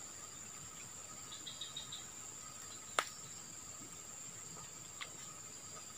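Faint, steady chorus of insects shrilling, with a short run of quick chirps early on and a single sharp click about three seconds in, followed by a softer click around five seconds.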